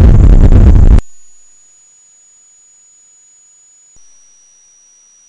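Synthetic image-to-sound audio made with Coagula Light: a loud, dense hiss and rumble that cuts off abruptly about a second in. A faint, steady, very high-pitched tone follows, dropping slightly in pitch after a small click near four seconds.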